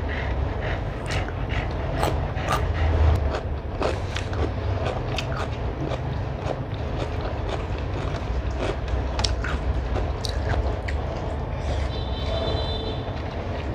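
Hand mixing rice and chicken curry on a metal plate, and eating: soft squishing and scattered clicks of fingers and food against the plate, with chewing, over a steady low hum.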